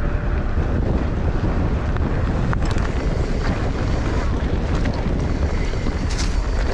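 Heavy wind rumble on the microphone, with a few sharp clicks and rattles.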